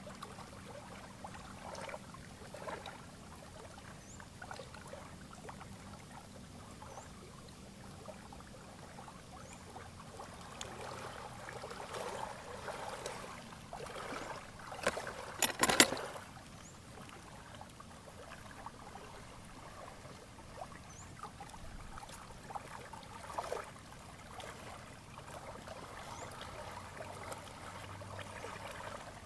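Small lake waves lapping and trickling at the shore, with soft crackles of fingers handling the pot and soil, and a brief louder crackle about fifteen seconds in.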